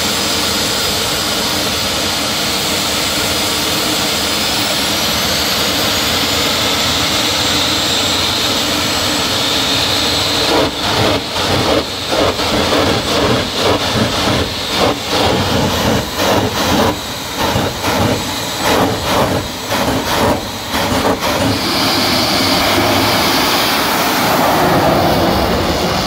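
Jet funny cars' turbine engines running loud at the starting line, with a high whine that rises about four seconds in. From about ten seconds the sound comes in a rapid series of irregular surges as the afterburners are pumped, then runs steadily at full power near the end as the cars launch.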